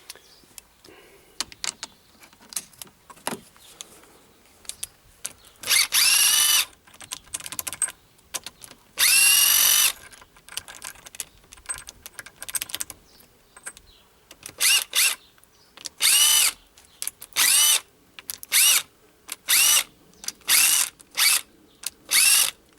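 Cordless Makita driver undoing the head bolts on a Copeland refrigeration compressor. Its motor whines up and down in pitch in two runs of about a second each, then in about eight short bursts near the end, with small metal clicks of the socket between them.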